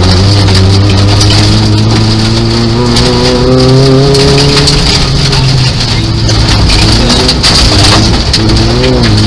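Nissan Micra 1.0-litre rally car's engine heard from inside the cabin, its revs climbing and then dipping a few times as the driver changes gear and lifts. Under it runs a constant crackle of gravel and road noise against the car.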